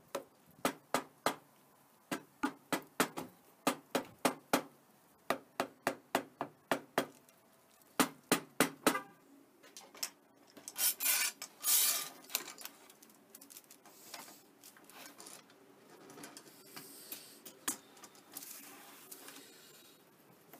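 A soft-faced mallet knocking a wooden panel, about two dozen blows in quick runs over roughly nine seconds, driving the interlocking finger joints of a glued-up board together. Then a couple of seconds of scraping and rustling as the panel is handled and a bar clamp is fitted, and quieter handling after.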